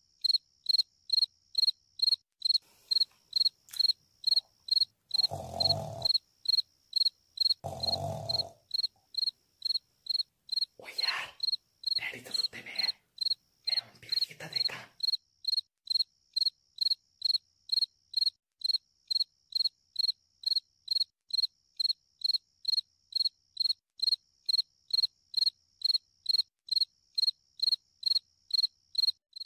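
Crickets chirping in a steady, even rhythm of about two to three high chirps a second. A few short, low sounds break in during the first half.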